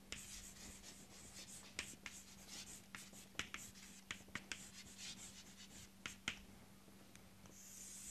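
Chalk writing on a chalkboard: faint scratching with sharp taps as the letters are formed, and a longer scrape near the end as the heading is underlined.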